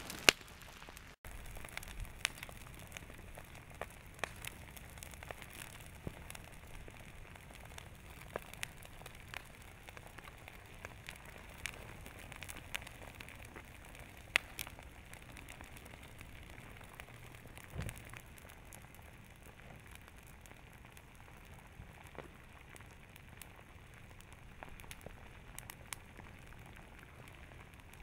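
Sporadic sharp crackles and pops from an advancing pahoehoe lava flow as it burns grass and asphalt, over a faint low rumble, with one louder pop near the start.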